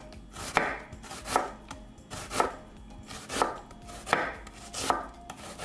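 Chef's knife slicing a red onion into thin slivers on a wooden cutting board: an even series of cuts, about one a second, each a short swish through the onion ending in a tap of the blade on the board.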